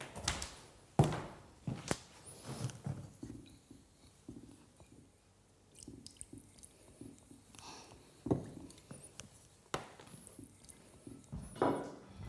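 Scattered knocks, clinks and thuds of paint tins and tools being handled in a painter's studio, a few sharp louder ones among lighter clatter, with a quiet stretch in the middle.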